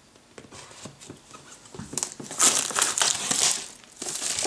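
Clear plastic shrink-wrap being stripped off a cardboard box: a few faint scratches and clicks at first, then about two seconds in a loud spell of crackly crinkling as the film is pulled away and crumpled.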